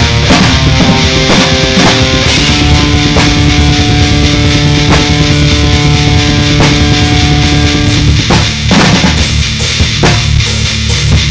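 A rock band playing loud: drum kit with steady bass drum and cymbal hits under distorted electric guitar with held notes, the guitar dropping back about eight seconds in.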